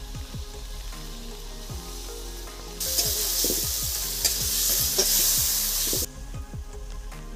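Spiced onion-tomato masala frying in oil in a wok, sizzling loudly for about three seconds in the middle while a spatula stirs and scrapes it, with a few sharp scrapes. Before and after the sizzle, only soft background music is heard.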